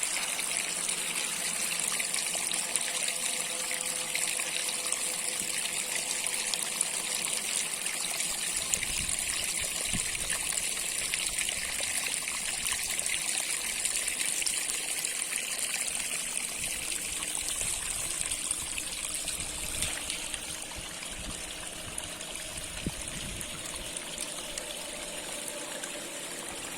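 Waterfall: a steady rush of falling water, a little softer in the last few seconds.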